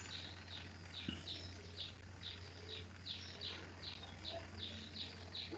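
Rhythmic high-pitched chirping from a small animal, about two or three chirps a second, over a faint steady low hum, picked up by an unmuted microphone on a video call.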